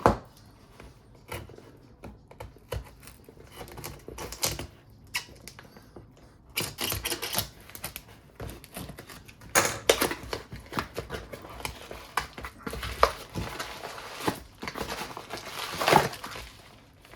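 A parcel being handled and opened by hand: irregular clicks, taps and scraping of cardboard and packaging, with louder rustling stretches about 7, 10 and 16 seconds in.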